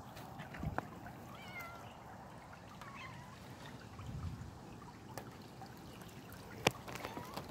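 A cat meowing a few short times over the faint trickle of running floodwater, with a sharp knock near the end.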